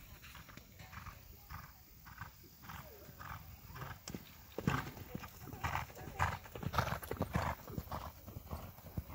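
A horse's hoofbeats on a sand arena as it canters, a rhythmic thudding about twice a second. It grows much louder as the horse passes close by, about halfway through, then fades again.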